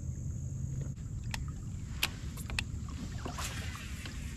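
Sounds of fishing from a kayak on open water: a steady low rumble, a few sharp clicks and knocks, and a brief rushing hiss a little past halfway.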